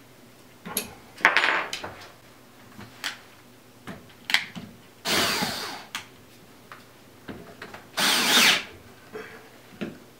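Cordless drill run in two short bursts, about five and eight seconds in, its motor speeding up and slowing as the drill is clamped into a drill guide stand, with clicks and knocks from handling the drill and the stand's metal parts.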